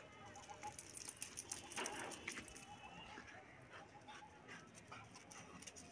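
Faint bird calls, with scattered light clicks and a short louder noise about two seconds in.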